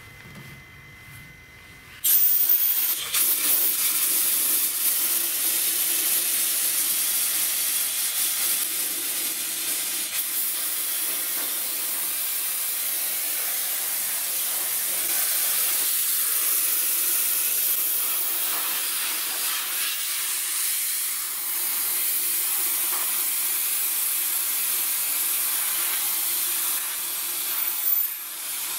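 Homemade sandblaster blasting dried sand with compressed air onto a rusty brake drum: a loud steady hiss of the air-and-sand jet that starts suddenly about two seconds in, with a brief dip near the end.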